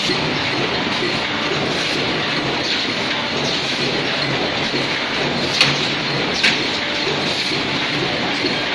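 Paper plate forming machines running on a production line: a steady, dense mechanical clatter, with two sharp clicks a little past halfway.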